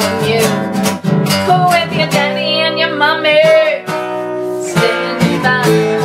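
Acoustic guitar strummed steadily, with a woman singing over it; in the middle she holds a long note with vibrato.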